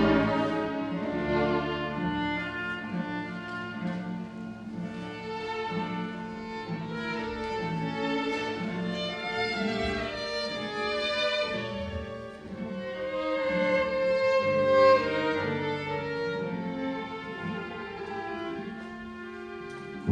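Chamber string orchestra playing, violins on top over cellos and basses, in sustained overlapping bowed notes that swell and fade, with one long note held with vibrato about three-quarters of the way through.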